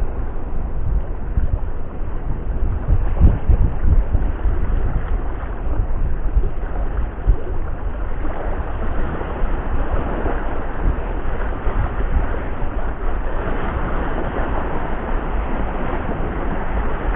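Wind buffeting the microphone: a low rumble that rises and falls in gusts over a steady hiss.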